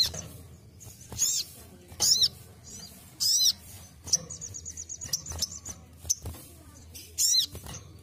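Caged little spiderhunter (sogon) calling: a few loud, sharp, arched high notes spaced about a second apart, with a fast chattering trill of repeated high notes lasting about a second and a half in the middle.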